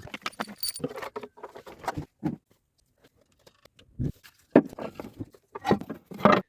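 Scattered clicks, taps and short rattles of hand tools and engine parts being handled while hoses and pipes are taken off the engine, with brief quiet gaps between them.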